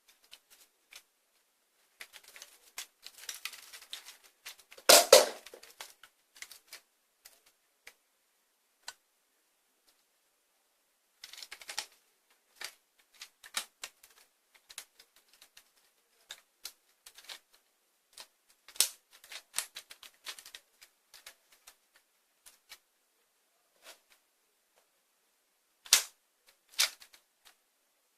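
Plastic clicks and clacks of a Lego pump-action toy shotgun being handled and worked. Scattered light clicks are broken by a heavier clack about five seconds in and two sharp snaps near the end.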